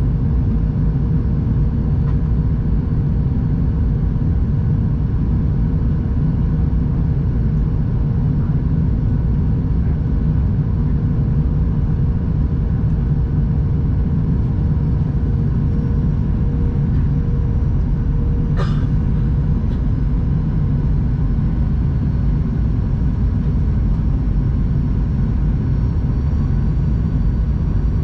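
Steady rumble of engine and airflow noise inside the cabin of a Boeing 737-800 in flight. A faint steady hum runs under it and stops with a single sharp click about two-thirds of the way in.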